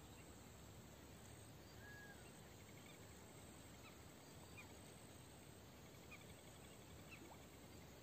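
Near silence: faint outdoor background hiss with a few faint, short high chirps.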